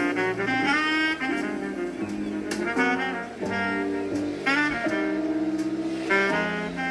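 Background jazz music with a saxophone carrying the melody over a bass line.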